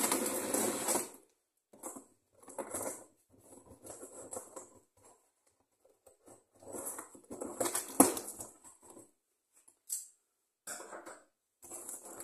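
Cardboard meal-kit box being opened with scissors: tape and flaps cut and the cardboard and packing inside handled, in short rustling, scraping bursts with pauses between, and a sharp click about eight seconds in.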